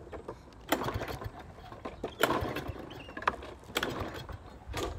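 Walk-behind lawn mower's recoil starter being pulled several times, each pull a short rattling whir, without the engine catching; the owner suspects the tank is out of gas.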